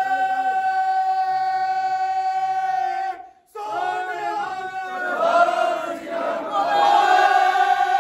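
Sikh congregation chanting in unison, many voices holding a long note. The sound breaks off for a moment about three seconds in, then voices rise and fall before settling into another long held note.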